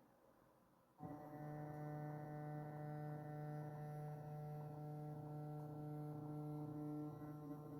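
Bachmann Class 42 Warship model locomotive's electric motor starting up about a second in and humming steadily at crawl speed, a buzzing hum with several pitches.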